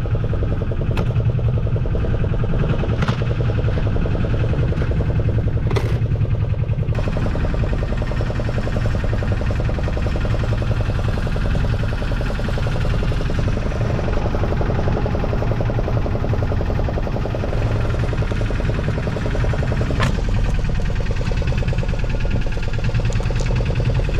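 Fishing boat's engine running steadily, a low drone with even pulsing, with a few sharp clicks, the clearest about twenty seconds in.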